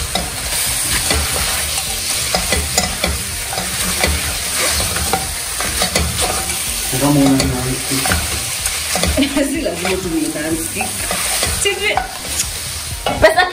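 Beef chunks sizzling as they brown in a hot non-stick pot, stirred continuously with a silicone spatula that scrapes and taps against the pot's base.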